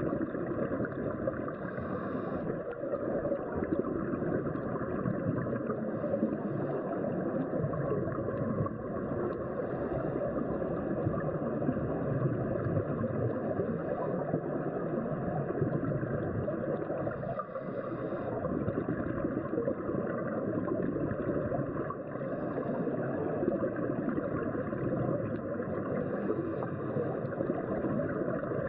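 Steady, muffled underwater rushing noise picked up by a camera in a waterproof housing during a scuba dive.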